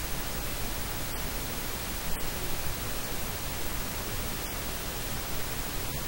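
Steady, even hiss of static noise across the whole range, with no voice in it.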